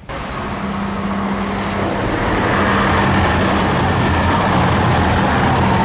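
CrossCountry Voyager diesel multiple unit passing close by. The steady low drone of its underfloor Cummins diesel engines runs under the rush of wheels on rail. It starts abruptly, grows louder over the first two seconds, then holds steady.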